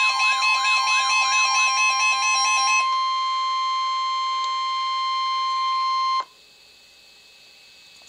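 A Midland NOAA weather radio sounding a warning alert: a warbling siren alarm, about three sweeps a second, over the steady 1050 Hz weather-radio warning tone. The siren stops about three seconds in, and the tone goes on alone until it cuts off suddenly about six seconds in. Faint radio hiss follows. This signals a severe thunderstorm warning.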